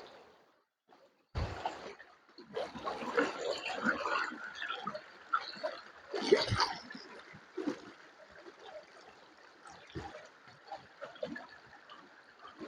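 Running water trickling and splashing, starting suddenly about a second and a half in. It is busiest and loudest over the next few seconds, then settles to a steadier trickle with scattered small splashes.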